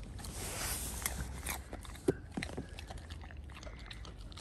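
An Alaskan malamute chewing a raw carrot stick: irregular wet crunches and clicks of the carrot breaking between its teeth.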